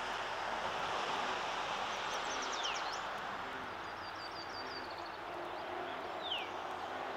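Songbirds singing in the trees around the lake: high rapid trills and, twice, a short downward-slurred note. Under them runs a steady even rushing noise.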